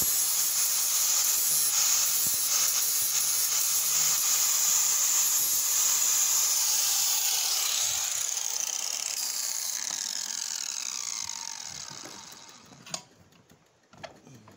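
Makita angle grinder with a cut-off wheel grinding into a steel axe head, a steady high whine and hiss. About eight seconds in it is switched off and its falling whine fades as the disc spins down. Near the end, a couple of sharp metal clinks come as the axe head is handled in the vise.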